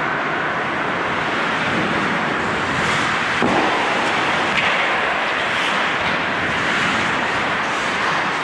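Ice hockey rink ambience during play: a steady hiss of skates scraping and carving the ice, with a few faint knocks of sticks and puck near the middle.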